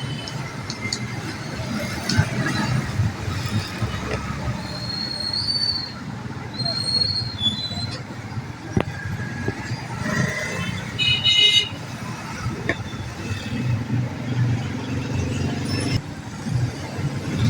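Voices and road traffic, with a short high toot like a vehicle horn about eleven seconds in.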